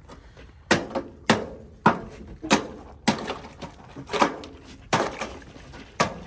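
Ice on a frozen water trough being broken with repeated hard blows from a tool: about ten sharp cracking strikes, a little under two a second.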